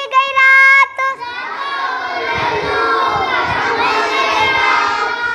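A child's sung voice holding notes for about a second, then a crowd of many children's voices shouting and singing at once, a dense clamour that lasts until near the end.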